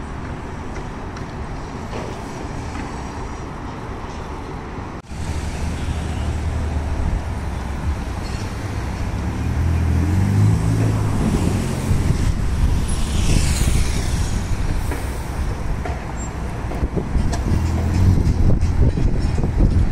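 Street traffic noise. About five seconds in it gives way to a Ferrari's twin-turbo V8 running as the car pulls through a turn and drives off. The engine note rises around the middle, and the sound is loudest near the end as the car accelerates away.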